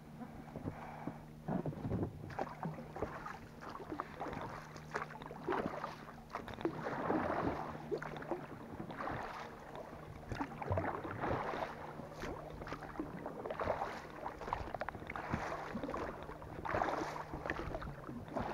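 Oars stroking through the water beside an inflatable boat: a splash and slosh with each stroke, about every second and a half.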